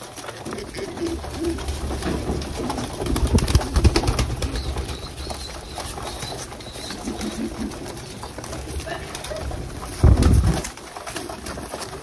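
A crowded flock of domestic pigeons cooing, with wings flapping and feathers rustling as they jostle. There is one louder rush of wing noise close by about ten seconds in.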